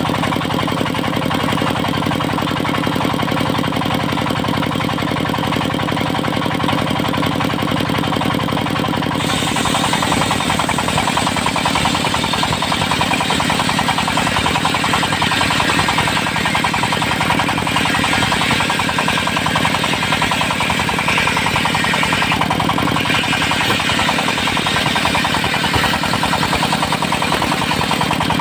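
Engine of a portable circular sawmill running steadily with a rapid firing beat. About nine seconds in, the loud hiss of the circular blade cutting through teak joins it and carries on almost to the end.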